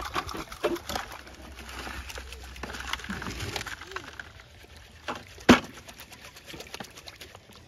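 Dirt and gravel being tipped from a plastic bucket into a wooden sifting screen, with a few light clicks and one sharp knock about five and a half seconds in.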